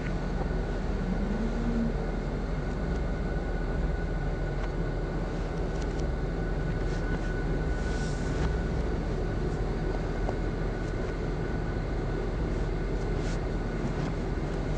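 Steady low rumble and hiss with a faint, steady high tone and a few faint clicks.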